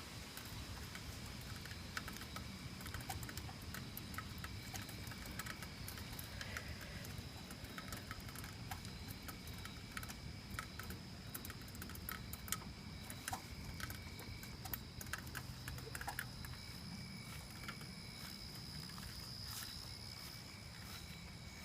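Light rain: scattered drops ticking and pattering, over a low rumble and a steady high-pitched tone.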